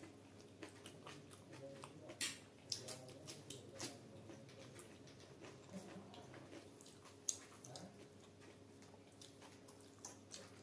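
Faint, close-miked eating sounds: wet chewing and the squish of fingers mixing rice and curry on a steel plate, with scattered sharp clicks, the loudest about two seconds in and about seven seconds in.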